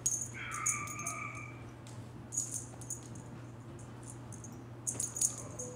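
A house cat gives one meow lasting a bit over a second, starting about a third of a second in, during play with a wand toy. Light metallic jingling comes and goes, loudest near the end, over a steady low hum.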